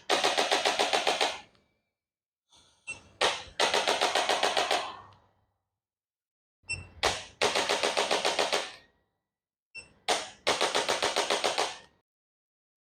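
A sound effect repeated four times, each time the same: a couple of short high beeps and a click, then a quick rattling run of ticks, about eight a second for a second and a half.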